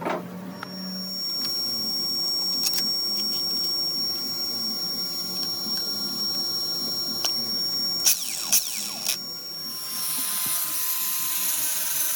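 Electric grinder fitted with a CD as a sanding disc, running with a steady high whine. There are a few sharp clicks about eight and nine seconds in. About ten seconds in the sound turns broader and hissier.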